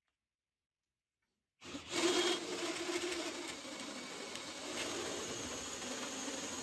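Angle grinder fitted in a homemade jig running steadily as it works wood, starting abruptly after about a second and a half of silence.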